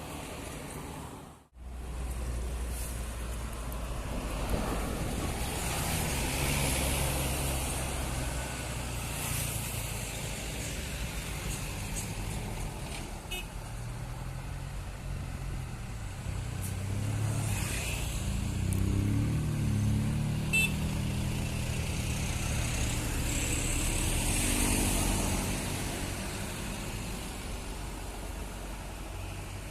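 Large diesel buses driving past on an uphill road, their engines working and rising and falling in pitch as they go by, with a brief gap in the sound about a second and a half in.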